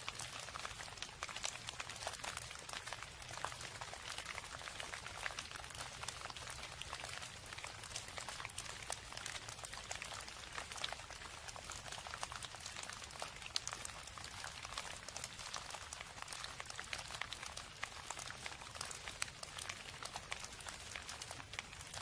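Steady rain, a dense patter of many small drops ticking without pause, with a faint low hum underneath.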